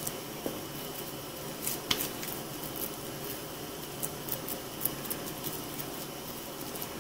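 Raw ground beef being squeezed and patted into a patty by hand, a faint squishing with a few soft pats.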